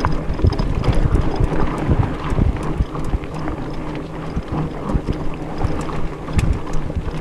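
Mountain bike being ridden on dirt singletrack: tyres rolling over dirt and roots, with frequent small clicks and knocks from the bike and trail. Wind buffets the camera microphone throughout.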